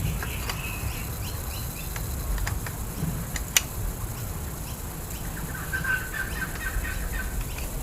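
Short bird chirps over a low steady background rumble, with a few sharp clicks, the loudest about three and a half seconds in.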